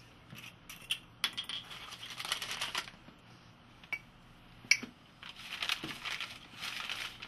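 A rolled sheet of paper being pulled out of a wine bottle and unrolled: paper rustling and crinkling in two long stretches, with a few sharp knocks, the loudest about halfway through.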